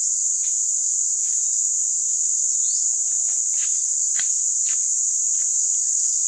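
Steady, high-pitched chorus of insects, with scattered short clicks and taps.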